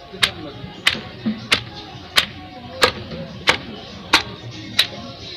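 Wooden pestle pounding bandindi greens in a wooden mortar: a steady rhythm of sharp thuds about one and a half strokes a second, eight strokes.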